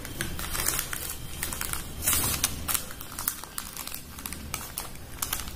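Butter paper crinkling as it is wrapped and folded by hand around a chapati roll: a run of irregular soft crackles.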